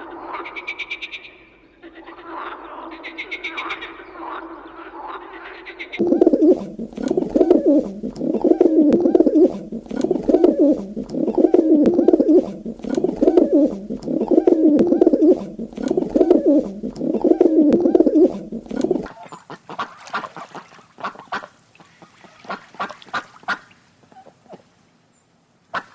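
A sequence of different animal calls: a croaking call for the first few seconds, then a loud run of repeated pulsed calls about once a second, then quieter sharp clicks and chirps for the last several seconds.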